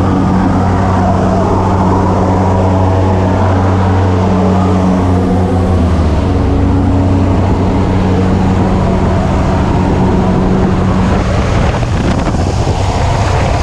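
Propeller aircraft engines droning steadily inside the cabin of a skydiving jump plane, a deep hum over a noisy rush of air.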